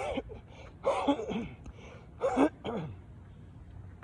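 A man's breathless, gasping voice straining through burpees: four short, breathy utterances, each falling in pitch.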